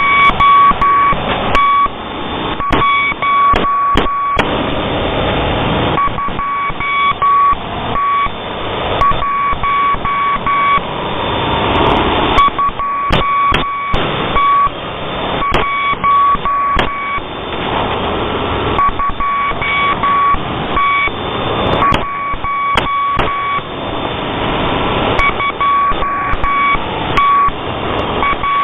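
Shortwave radio picking up a Morse code signal: a keyed tone of short and long beeps sounding in groups with short pauses between, over loud hissing static with crackles.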